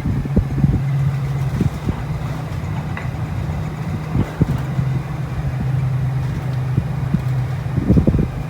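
1986 Mitsubishi Electric Kirigamine MSE-2240R air conditioner running with a steady low hum, overlaid by irregular low rumbles and a faint tick or two.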